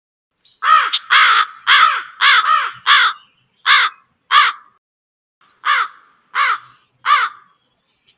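A crow cawing about eleven times in two runs, with a short pause about five seconds in.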